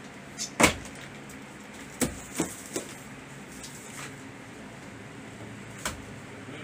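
A large cardboard box being opened: a blade slitting the packing tape, then the flaps pulled open. A few sharp cardboard knocks and crackles, the loudest about half a second in.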